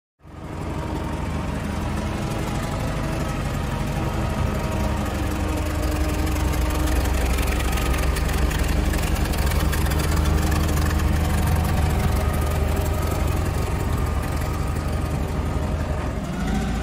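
The propane engine of a 2006 Daewoo GC25S-2 forklift idling steadily.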